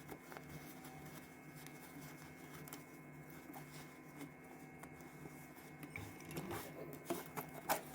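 Faint handling of jacket fabric and a zipper, with a few soft clicks, the sharpest about six and seven and a half seconds in, over a low steady hum.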